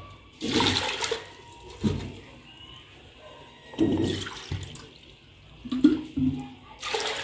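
Water poured from a steel bowl into a metal pot of whole masoor lentils, splashing onto the lentils in several separate pours.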